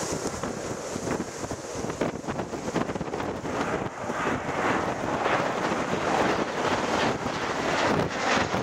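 Jet airliner on landing approach passing low overhead: a steady rushing engine noise that grows louder from about four seconds in. Wind rumbles on the microphone throughout.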